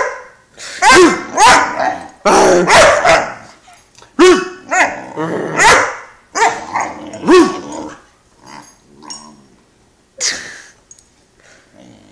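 Great Dane puppy protest-barking in a fast string of loud, high barks and yips with a grumbling edge, each bark rising and falling in pitch. After about eight seconds the barking thins out to a few quieter grunts.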